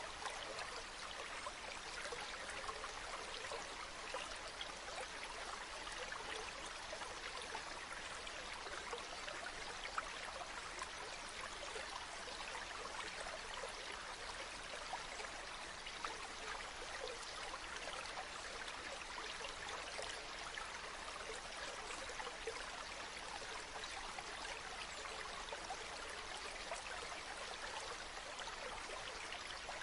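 Waterfall: a steady rush of falling water, flecked with many small splashes.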